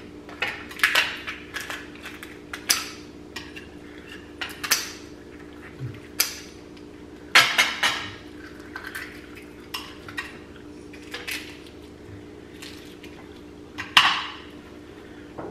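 Irregular clinks and clatters of spoons and forks on plates and bowls while steamed lobster is eaten and its shell picked apart, with the sharpest clatters about halfway through and near the end. A faint steady hum runs underneath.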